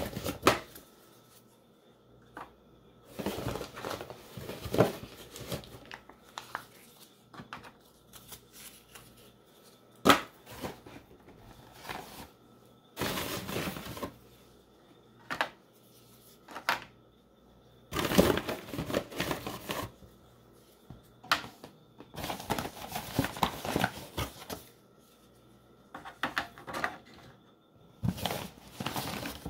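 Plastic single-serve coffee pods being handled and dropped one by one into the slots of a coffee pod storage drawer: irregular light clicks and rattles in short clusters, with rustling between.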